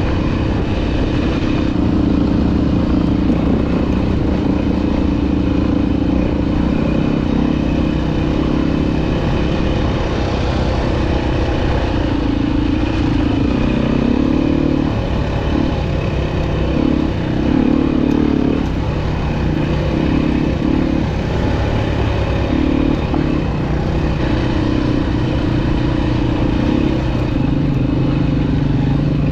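Dirt bike engine running continuously under way on a trail, its pitch shifting and the throttle opening and closing repeatedly through the middle of the stretch.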